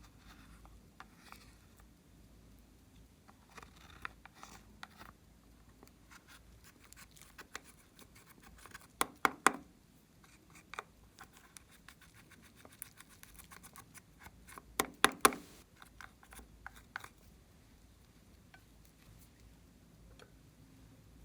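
Glossy slime being worked by hand, giving scattered sticky clicks and pops. Two louder clusters of rapid clicking come about nine seconds in and again about fifteen seconds in.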